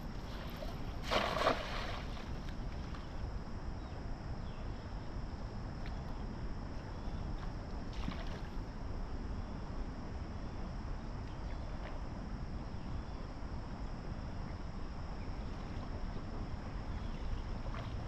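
Steady low rumble of wind on the microphone and flowing river water, with one brief louder noise about a second in.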